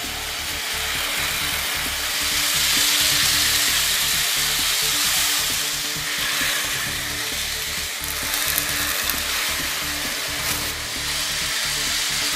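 Three toy bullet trains fitted with Tamiya Mini 4WD motors running on plastic track: a steady, high-pitched buzzing hiss of the fast little motors and wheels that grows louder about two seconds in, with a few sharp clicks in the second half.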